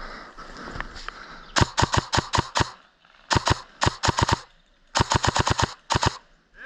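Airsoft gun firing three rapid bursts of sharp shots, each about a second long, then two quick shots near the end.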